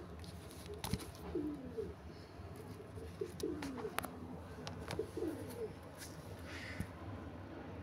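A dove cooing: three low, falling coo phrases, with a few faint clicks between them.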